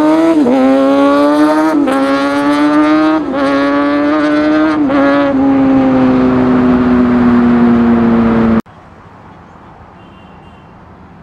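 Sport motorcycle engine accelerating hard up through the gears: the pitch climbs high, drops at each of three shifts, then falls slowly for a few seconds as the bike goes by. About two-thirds of the way in it cuts off abruptly, leaving quieter steady road-traffic noise.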